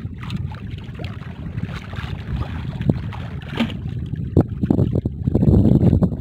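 Wind buffeting the microphone over water lapping against a small wooden outrigger boat, with a few sharp knocks; the rumble swells louder near the end.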